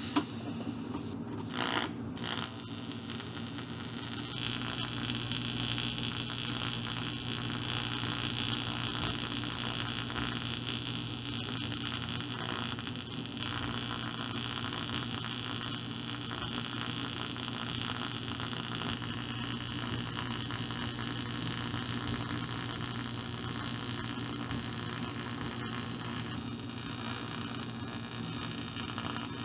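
AC TIG welding arc on aluminum buzzing steadily with a hiss, the welder set at 45 amps, as broken cooling fins on a Triumph Tiger Cub cylinder head are built up. A few light knocks come first, and the buzz steadies about four seconds in.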